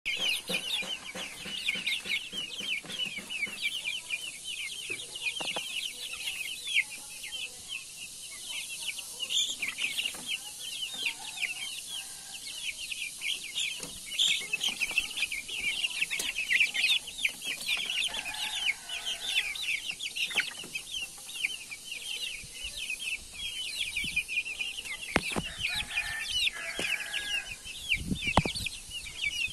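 A pen full of young Rhode Island Red chicks and pullets peeping nonstop in dense, high-pitched chirps, with a few lower clucks now and then and a few knocks near the end.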